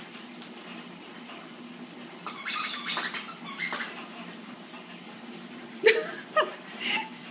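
Yorkshire terrier and ferret tussling over a plush toy: a burst of high squeaking from about two seconds in, then a few short cries that fall in pitch near the end.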